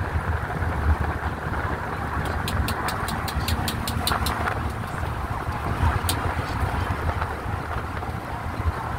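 Steady engine and tyre rumble of a road vehicle crossing a bridge, heard from inside the vehicle. About two and a half seconds in comes a quick run of about ten sharp clicks, roughly five a second, and one more click a little later.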